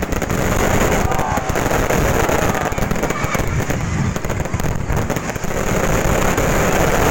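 Fireworks going off: a loud, dense, unbroken crackle of rapid small pops.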